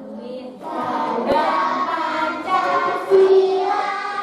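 A group of children singing together in held, steady notes, with one short knock about a second in.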